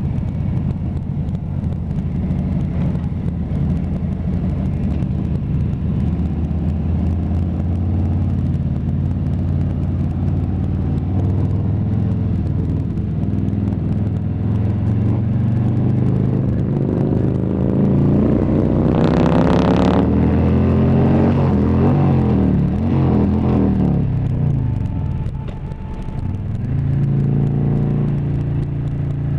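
Harley-Davidson touring motorcycle's V-twin engine running under way from the rider's seat. The revs climb from about halfway through, with a short hiss about two-thirds through. They then fall away and dip before picking up again near the end.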